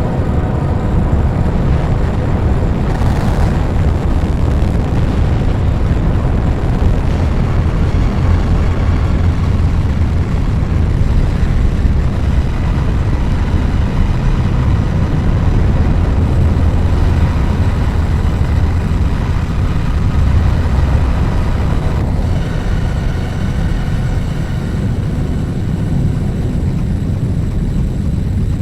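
Noise and drone music: a dense, steady wall of low rumbling noise with faint held tones above it. A few higher tones come in about three-quarters of the way through.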